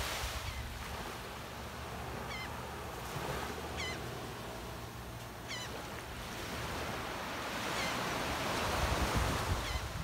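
Small waves washing onto a sandy beach, the surf hiss swelling and easing, with a bird giving short call notes several times.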